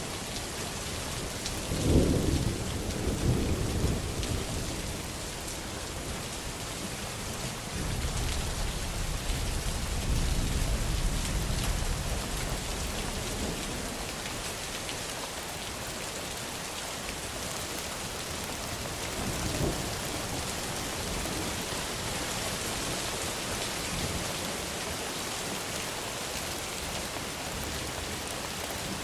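Thunderstorm with steady rain throughout. A sharp crack of thunder comes about two seconds in and rolls off over a few seconds. A longer low rumble of thunder follows from about eight to thirteen seconds, and a smaller clap comes near twenty seconds.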